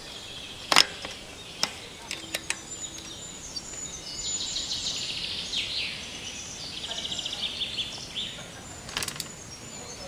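A few sharp metallic clicks of parts and tools as a downhill bike's front wheel is fitted into the fork and its through-axle is turned with an Allen key, over a steady background hiss. In the second half there is a rapid, high, evenly spaced ticking.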